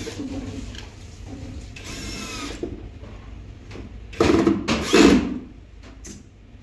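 Cordless drill driving screws into a cabinet panel: a short run of the motor about two seconds in, then two louder, longer bursts about four and five seconds in.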